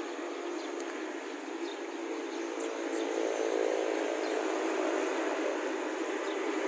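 Sugarcane train running, a steady mechanical noise that grows louder about three seconds in.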